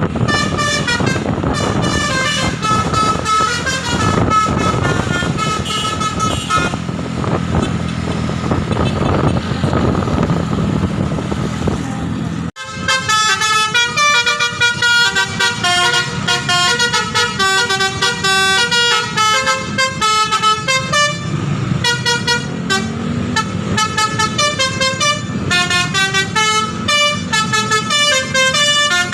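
Bus telolet 'basuri' musical horn playing quick runs of melody notes, with a bus engine running underneath in the first half. About twelve and a half seconds in the sound drops out for an instant, then the horn tune carries on, clearer and with less engine rumble.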